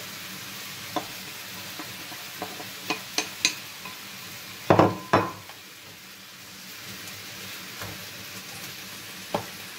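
Chopped vegetables and chicken sizzling steadily in a frying pan while they are stirred, with a wooden spatula clicking and knocking against the pan. Two louder knocks come close together near the middle.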